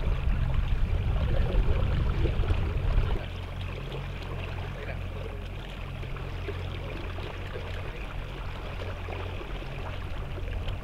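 Water lapping and sloshing against a boat hull, over a steady low hum that drops in level about three seconds in.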